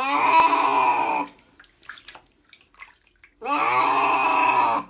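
Tabby cat yowling in protest at being bathed in a mesh grooming bag: two long, loud meows, the second about three and a half seconds in, with faint splashing of bath water between them.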